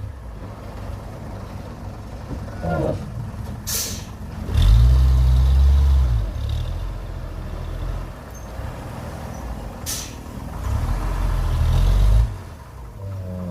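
Excavator's diesel engine running, rising under load twice as the hydraulics work. Short hissing bursts come about 4 and 10 seconds in.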